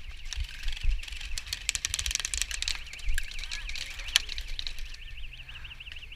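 A high warbling tone, wavering up and down several times a second, runs steadily like an electronic alarm. Over it come a flurry of sharp clicks around the middle and a single sharp crack about four seconds in.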